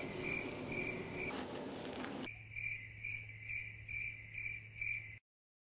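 Electronic beeping, about two and a half short high beeps a second: the warning of a running-down battery. A low steady hum joins about two seconds in, and everything cuts out shortly before the end.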